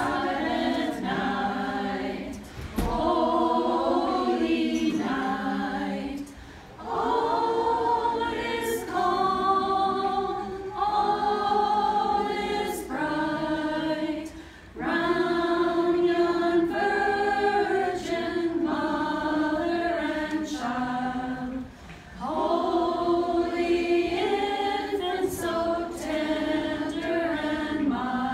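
Group of women singing a Christmas carol together a cappella, with no accompaniment, in held phrases with brief pauses between them.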